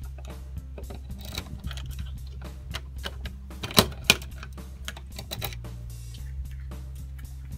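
Keys rattling and a door lock clicking as a key is turned in it, with two sharp clicks of the lock about four seconds in; background music plays underneath.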